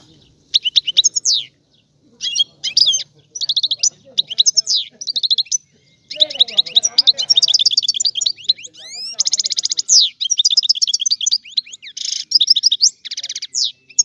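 European goldfinch singing: quick, tinkling twittered phrases with short pauses between them for the first six seconds or so, then an almost unbroken run of song.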